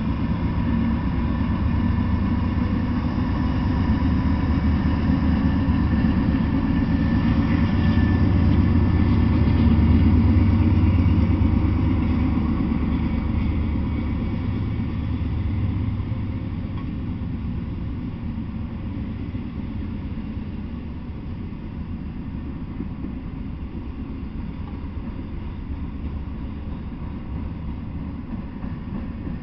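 Diesel-hauled freight train passing at speed. Its locomotives rumble by first, then double-stack intermodal cars roll along the rails. The rumble is loudest about ten seconds in, then eases off to a steadier, quieter rolling noise.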